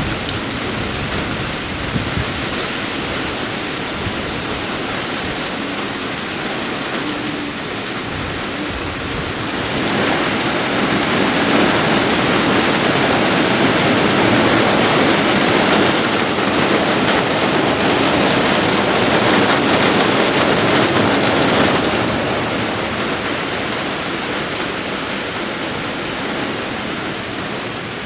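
Moderate rain shower falling steadily; about a third of the way in the downpour grows heavier for some ten seconds, then eases back.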